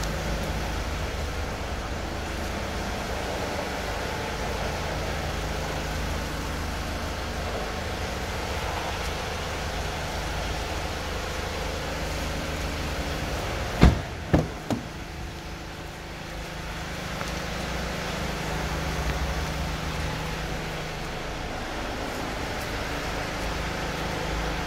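SsangYong Actyon idling with a steady low hum. About halfway through, a car door is shut with one sharp thud, followed by two lighter knocks.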